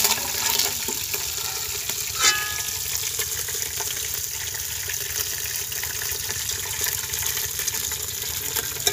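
Hot cooking oil sizzling steadily in a large metal pot where fish is being fried, with a short ringing clink of a steel ladle against the pot about two seconds in.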